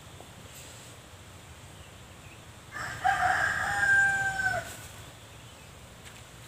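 A rooster crowing once: a single call of about two seconds near the middle, choppy at first, then a long held note that drops off at the end.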